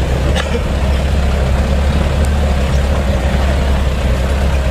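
The diesel engine of an Isuzu Elf microbus running, heard from inside the cabin as a steady low drone with road noise.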